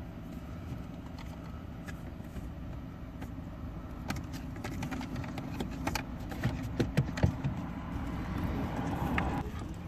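Small plastic clicks and taps from a screwdriver and fingers working at the wiring connectors and trim behind a Citroen Cactus's dashboard touchscreen. The clicks come scattered from a few seconds in, the sharpest ones a little past the middle, over a steady low background rumble.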